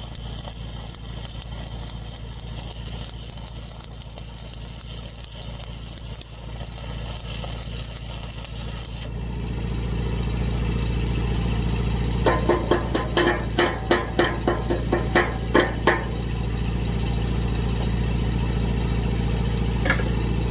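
Welding arc crackling and hissing steadily, stopping suddenly about nine seconds in. Then about ten quick ringing hammer blows on steel, with one more near the end, over a steady engine hum.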